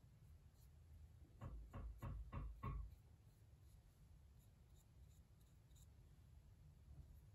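Four or five soft rubbing knocks in quick succession, about three a second, from a ceramic chopstick rest being handled on its wooden base; otherwise near silence.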